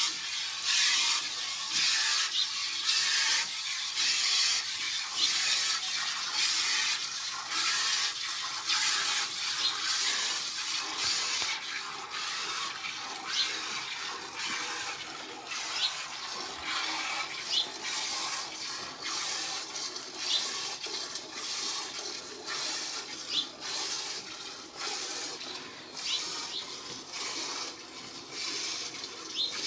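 A water buffalo being milked by hand: jets of milk squirting into a pail in a quick, even rhythm of strokes. A few short high chirps come through now and then.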